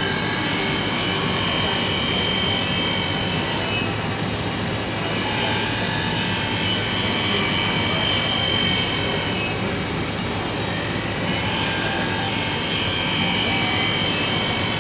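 A crystal-cutting wheel grinding into a lead-crystal piece: a steady grinding hiss with a thin high whine that comes and goes.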